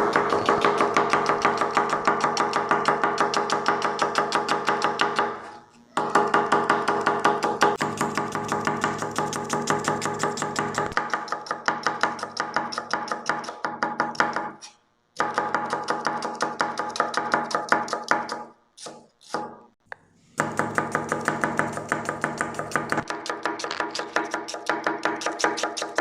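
Knife slicing onions thinly on a cutting board in fast, even strokes, about four or five a second, with a few short pauses. Background music plays throughout.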